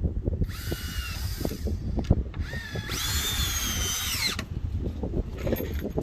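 Power drill driving screws into wooden floor boards through pre-drilled holes, in two runs: a short one about half a second in, then a longer one from about two seconds in whose whine rises as it spins up, holds, and stops about four and a half seconds in.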